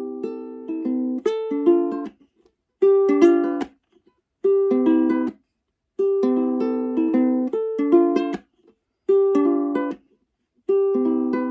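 Relaxing instrumental music: a plucked-string instrument plays gentle melodic phrases of ringing notes. Each phrase stops suddenly into a short silence, about five times.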